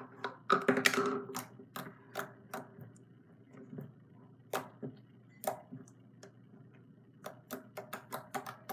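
Soft jiggly-fluffy slime being squeezed and poked by hand, giving off irregular sharp clicks and pops, thickest about a second in and again near the end.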